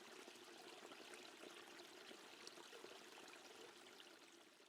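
Faint flowing water, a soft steady trickle with small scattered drips, fading out near the end.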